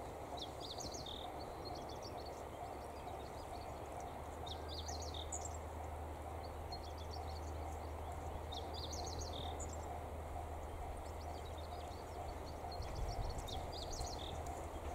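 A songbird singing short, repeated chirping phrases about every four seconds, over a steady low rumble and a faint steady hum.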